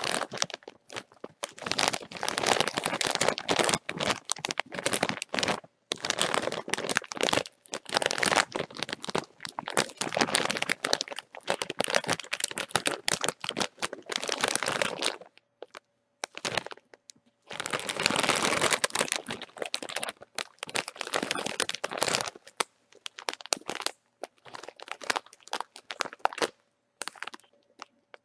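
A plastic-foil bag of chips being crinkled and crumpled by hand, in bouts of dense crackling a few seconds long with short pauses between them, the longest pause about halfway through.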